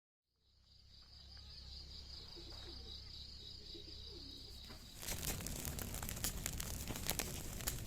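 A steady, high, slightly pulsing insect trill over a low hum, fading in at the start. About five seconds in it gives way to a dense run of crackling, rustling clicks.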